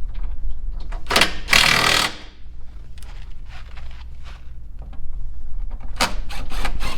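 Impact wrench running the rear fascia's mounting bolts tight in short bursts: two about a second in, and two more near the end.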